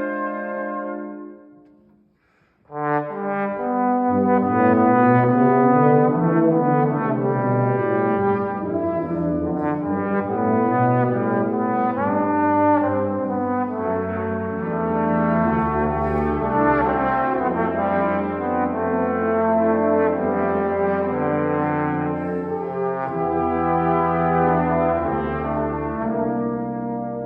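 Brass quintet playing. A held chord dies away, then after a pause of about a second the full ensemble comes back in and plays on, low bass notes under moving upper parts.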